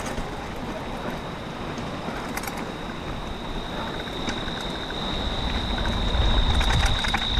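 Bicycle rolling along a dirt trail: tyre noise with scattered clicks and rattles, and wind rumble on the microphone that grows stronger from about five seconds in. A steady high whine runs underneath.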